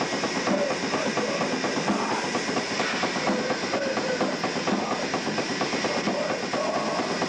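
Black metal band playing at rehearsal: distorted electric guitars over fast, dense drumming, in a harsh, muddy room recording.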